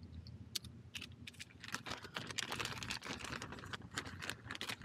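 Thin packet of new O-rings crinkling and rustling in the hands: a few separate clicks at first, then a dense run of quick crinkles from about two seconds in.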